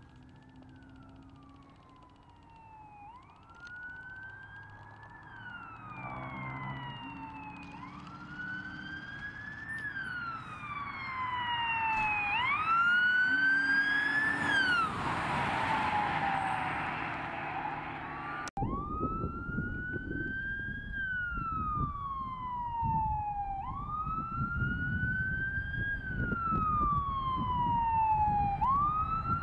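Emergency vehicle sirens on a wail, the tone rising and falling every few seconds. The first grows louder as it approaches and passes with a rush of road noise. An abrupt cut just past halfway leads to another wailing siren, louder, over low engine and road rumble.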